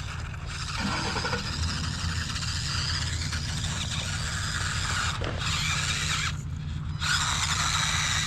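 Losi Micro B 1/24-scale RC buggy's brushed motor and gears whining as it drives, easing off briefly twice as the throttle lets up, over a steady low rumble.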